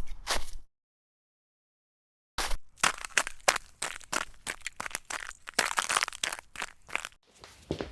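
Foley sound effects: a few sharp clicks over a low rumble stop abruptly, then after a second and a half of dead silence a rapid, uneven run of sharp crackles and crunches sets in and cuts off suddenly near the end.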